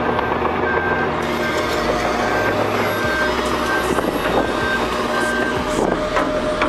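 Reversing alarm on heavy construction machinery, beeping at one pitch about three times every two seconds and fading out about five seconds in, over the steady rumble of the machines' engines.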